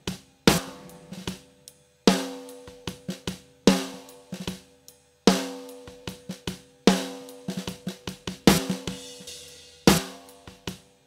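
A live drum kit recording playing back in a loop: snare, kick and hi-hat in a repeating groove, with a strong hit about every second and a half and lighter hits between. The snare rings on with a pitched tone and is layered with a triggered real-snare sample.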